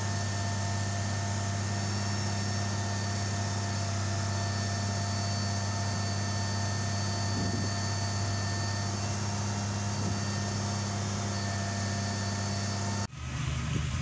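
Boom-crane truck's diesel engine idling with a steady, even hum. It cuts off abruptly about a second before the end, replaced by wind on the microphone.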